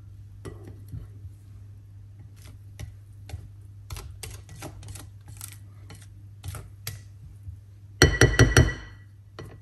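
A mixing utensil clicking lightly against a bowl as the cake batter is worked, then a quick run of about five ringing knocks of the utensil on the bowl about eight seconds in.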